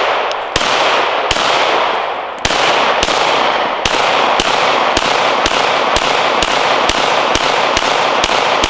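Semi-automatic pistol fired in a string of about fifteen shots, each followed by a long echo that runs into the next. The shots come about a second apart at first and quicken to about two a second.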